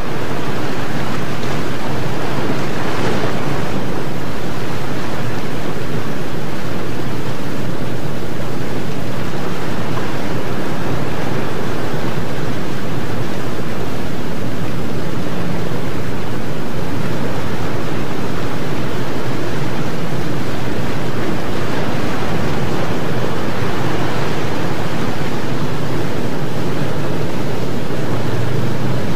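Loud, steady rush of breaking surf and whitewater, with wind buffeting the microphone.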